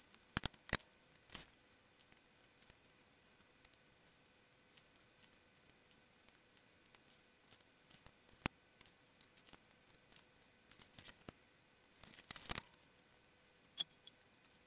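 Sparse sharp clicks and small knocks of plastic and metal parts being handled as a VCR's tape deck mechanism is fitted back onto its chassis, with a short burst of rattling about twelve seconds in.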